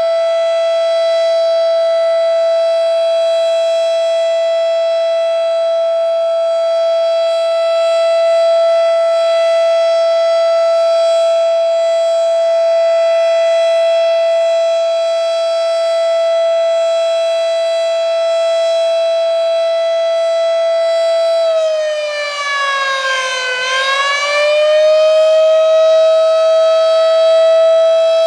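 Federal Signal Model 7 mechanical tornado siren sounding its steady alert tone, loud and held on one pitch. About 22 seconds in, its pitch sags briefly and then climbs back to the full steady tone.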